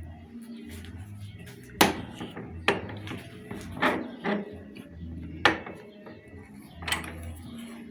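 Metal parts of a disassembled centrifugal water pump clanking against metal at the bench: about six sharp metallic knocks, irregularly spaced, as the part is handled and set in a vise.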